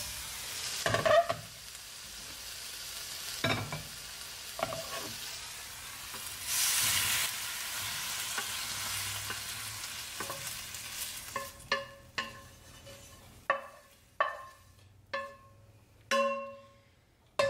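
Stir-fried vegetables sizzling in a stainless steel skillet just taken off the heat, stirred with a wooden spatula. From a little past halfway, the wooden spatula knocks against the metal pan about eight times, each knock ringing briefly, as the food is scraped out onto a plate.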